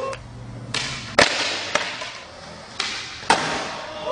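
Skateboard wheels rolling on a smooth concrete floor, broken by sharp wooden clacks of the board popping and landing during flat-ground tricks. The loudest clack comes about a second in, another about three seconds in.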